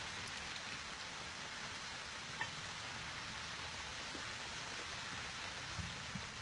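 Steady outdoor hiss with a few faint ticks, one about a third of the way in and two near the end.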